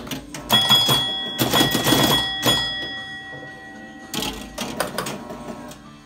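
1968 Williams Pit Stop electromechanical pinball machine clattering with quick relay and switch clicks. About half a second in, a bell rings and dies away over about three seconds. A second burst of clicking comes about four seconds in.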